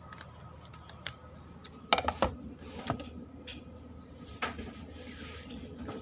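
Scattered clicks and knocks of the phone being handled and set in place, the loudest cluster about two seconds in, over a steady low hum.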